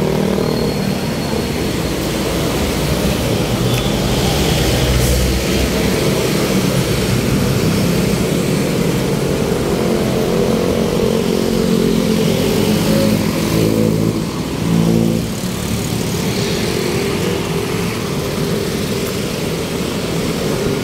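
A motor vehicle's engine running steadily with road noise, its pitch shifting a little as the speed changes, and easing off briefly about two-thirds of the way through.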